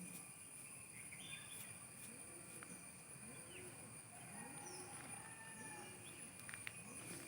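Faint outdoor ambience: a steady high hum, a few short bird-like chirps, and a soft low call that rises and falls about once a second.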